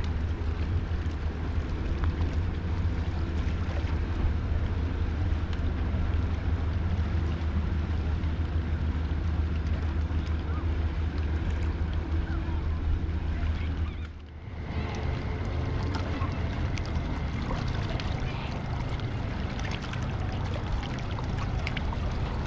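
A steady low motor hum over background noise, dropping out briefly about fourteen seconds in and then going on more faintly.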